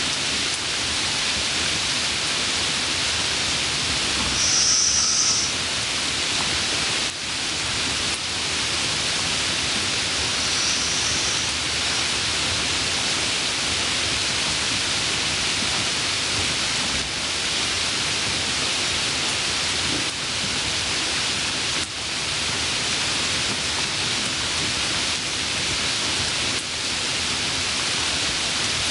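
Steady hissing noise that keeps an even level, with a few brief brighter high hisses about four and ten seconds in.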